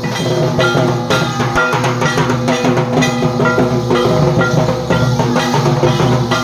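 Music with drum strokes beating in a steady rhythm and a sustained melody over them, matching the barrel drums and hand drums that the dancers are playing.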